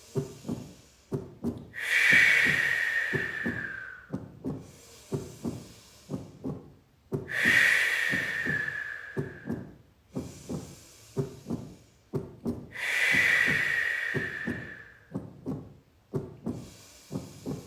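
A steady drum beat like a heartbeat, several strokes a second, under three long, forceful exhalations through the mouth, about five seconds apart, each a hiss that falls slightly in pitch: powerful breathwork breathing.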